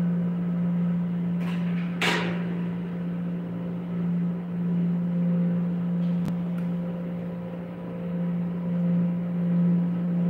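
Steady low motor hum, as from a kitchen range hood fan running over a gas stove, with a short hiss about two seconds in and a single click about six seconds in.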